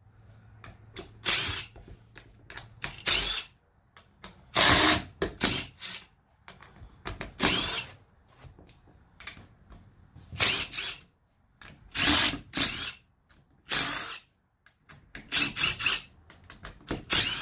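Cordless DeWalt impact driver backing the case bolts out of a riding mower's transaxle, in about a dozen short bursts of a second or less with pauses between them.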